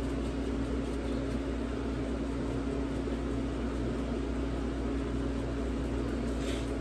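A steady mechanical hum with one constant low tone, with a faint shake of a seasoning can near the end.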